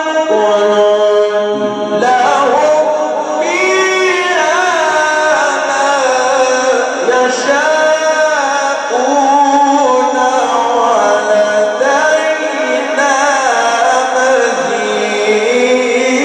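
A male Quran reciter chanting in the melodic mujawwad style, one voice drawing out long ornamented phrases whose pitch glides up and down with no break.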